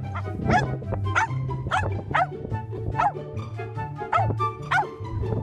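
A dog yipping repeatedly, about eight short high yelps roughly every half second, over background music with a steady low bass line.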